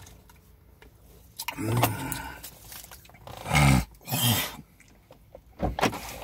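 A man's short wordless vocal sounds, grunts or hums with a bending pitch, three times, alongside the crinkle and rustle of an aluminium-foil burger wrapper being handled, with a few sharp clicks near the end.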